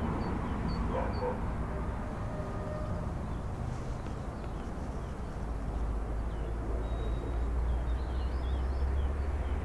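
Outdoor ambience: a passing car fades away in the first second, leaving a low steady rumble with faint chirps of small birds, a few near the start and a cluster about eight seconds in.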